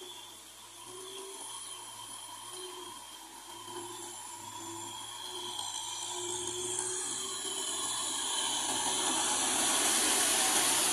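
Kubota MT6040 tractor's diesel engine running as it pulls a rotary tiller through wet mud. It grows steadily louder as the tractor comes close and is loudest near the end.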